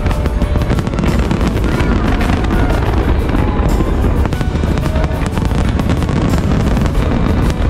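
Fireworks display: a dense, irregular run of bangs and crackles over a steady low rumble, with music playing underneath.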